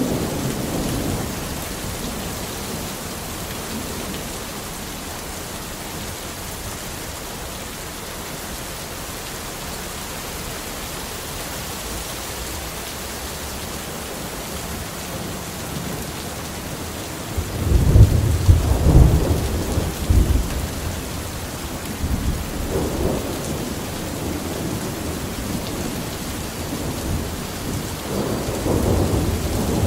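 Thunderstorm: steady rain hiss throughout, with a loud rolling thunder rumble about two-thirds of the way through, lighter rumbles after it, and more thunder building near the end.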